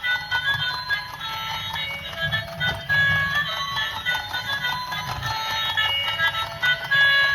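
Background music: a bright, bouncy melody of short notes over a low pulse.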